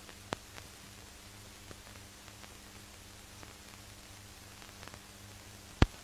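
Surface noise of an old archival film recording: steady hiss over a low hum, with a few faint crackles and two sharp pops, a small one just after the start and the loudest one near the end.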